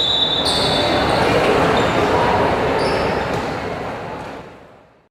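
Basketball game noise in a large sports hall: crowd chatter and court sounds, with a high steady tone fading out in the first second. The whole sound fades away to silence near the end.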